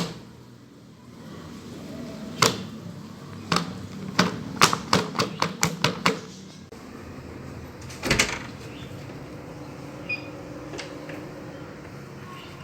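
A series of sharp clicks and knocks: one about two seconds in, a quick run of about eight between four and six seconds, and a short clatter near eight seconds, over a low steady background.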